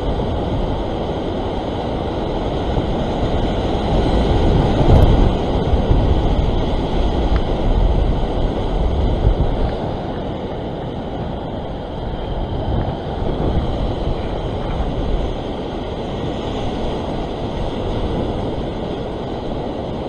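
Ocean surf breaking and washing over a rock shelf, with wind buffeting the microphone. The wash swells louder about four seconds in, then eases off after a few seconds.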